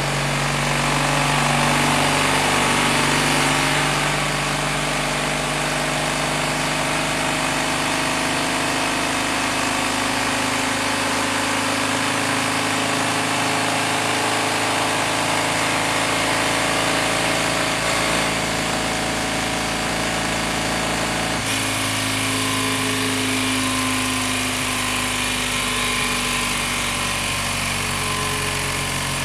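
An engine or motor running steadily, its pitch shifting slightly about four seconds in and again near twenty-one seconds.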